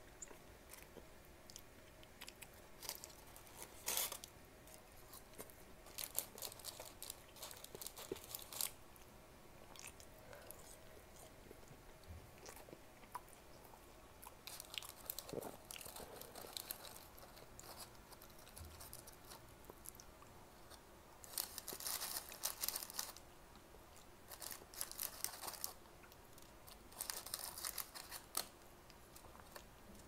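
Close-miked eating of a double quarter-pounder cheeseburger and crunchy fries: chewing and crunching, with several short crackly bursts of the paper wrapper being handled.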